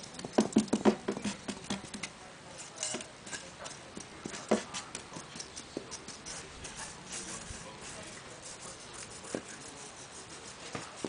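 A quick run of light knocks and clicks in the first two seconds, then scattered single taps, the loudest about four and a half seconds in.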